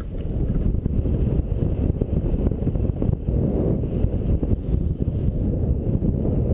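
Wind buffeting an action camera's microphone during a fast ski descent, with skis running over snow; a steady, uneven, low-pitched rush.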